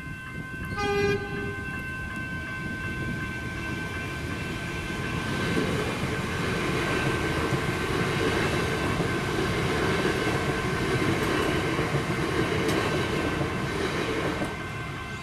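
Level crossing's General Signals electronic bell ringing steadily while a train horn gives one short blast about a second in. From about five seconds an electric suburban train runs through the crossing, a rumble of wheels on rail that builds and cuts off near the end, with the bell still ringing.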